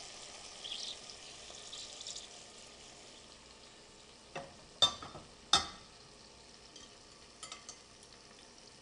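Beef frying in its soy-sauce marinade with onion and garlic, a steady faint sizzle with a few small pops. About halfway through come three sharp clinks and knocks, the loudest sounds here, and a couple of lighter clicks follow near the end.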